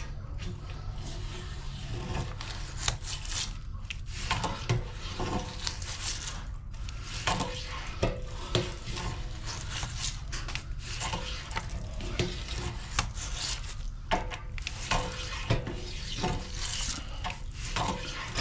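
Irregular scraping and rubbing with small clicks, as hard-water scale and sediment are worked loose inside an RV water heater tank.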